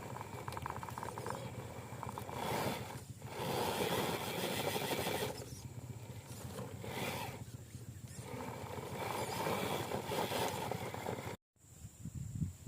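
Radio-controlled scale truck's motor and drivetrain running in surges, speeding up and easing off several times as it drives through mud. The sound cuts out abruptly near the end.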